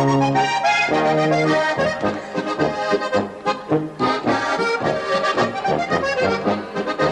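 Slovenian diatonic button accordion (frajtonarica) playing a lively polka tune, its melody over a steady oom-pah bass on the beat.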